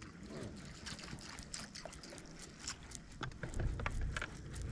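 Small scattered splashes and trickling of water, with a low steady hum coming in about three and a half seconds in.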